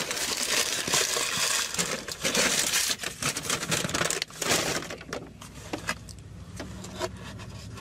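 Paper sandwich wrapper crinkling and rustling as it is pulled away and handled. The crinkling dies down about five seconds in, leaving a low steady hum with a few light paper rustles.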